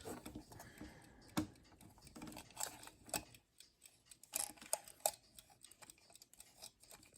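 Faint, irregular small clicks and taps from handling a plastic alarm clock and its hands while the hands are fitted, with a cluster of sharper clicks in the middle.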